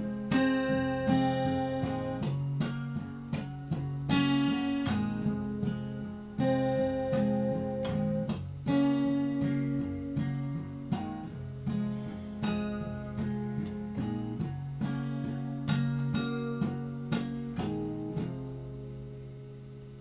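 Acoustic guitar strumming the closing chords of a country song, each chord ringing and dying away, the last one left to ring out and fade near the end.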